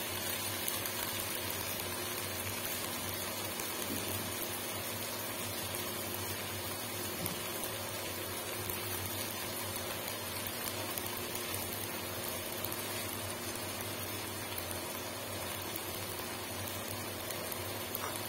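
Chopped ridge gourd, onion and tomato cooking in a nonstick wok, giving a steady simmering hiss as the vegetables stew in the juice they have released.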